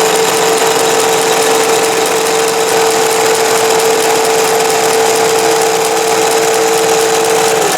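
Singer 411G sewing machine stitching steadily, driven by a servo motor through a belt reducer: a loud, even whir with a constant hum that stops just before the end.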